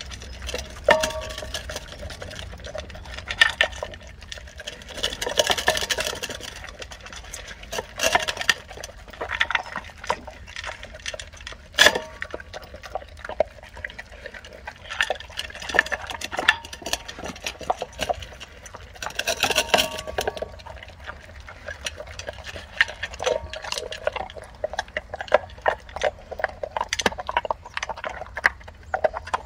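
Labrador retriever eating kibble and rice from a stainless steel bowl: irregular crunching, chewing and licking, with the metal bowl clinking and ringing briefly now and then, and one sharp clink about twelve seconds in.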